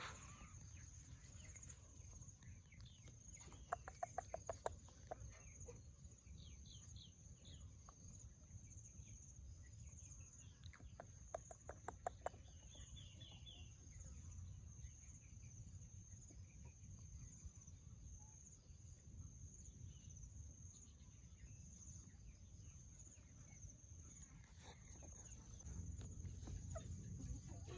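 Laying hens clucking in two short runs of quick, evenly spaced clucks, faint, with a single sharp tick near the end.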